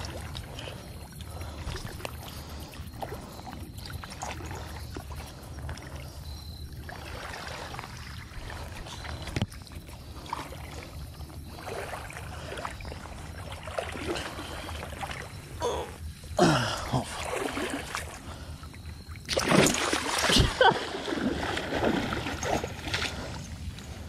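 Water splashing and sloshing at the bank over a steady low rumble, with louder bursts of splashing about two-thirds of the way through and again near the end.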